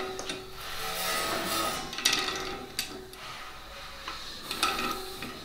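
Hand tools on a bare 5.8L GT500 engine: rubbing and scraping with a few sharp metal clicks as the crankshaft is turned by hand against a piston stop. The degree wheel is being read on the other side of top dead center.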